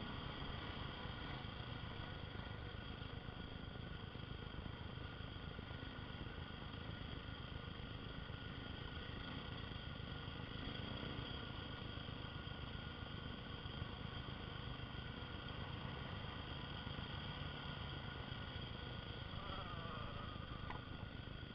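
Single-cylinder dual-sport motorcycle engine running at a steady cruise on a dirt trail, with rushing wind and road noise underneath; the engine note wavers briefly near the end.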